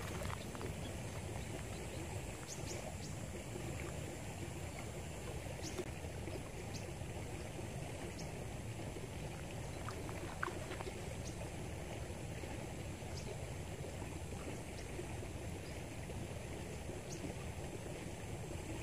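Steady river-flow ambience, an even rushing noise, with a few faint short clicks scattered through it.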